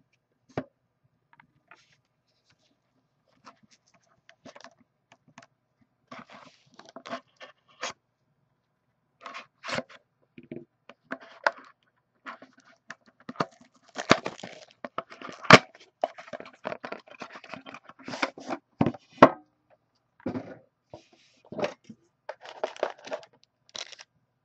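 Plastic shrink-wrap being torn and peeled off a sealed trading card box, crinkling and crackling in irregular bursts, with scrapes and clicks as the box and the card tin inside are opened. It is sparse at first, then loudest and busiest a little past halfway.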